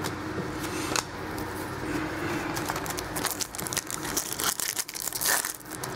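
Foil wrapper of a 2012 Topps Platinum football card pack crinkling in the hands: sparse at first, turning to dense crackly rustling from about halfway.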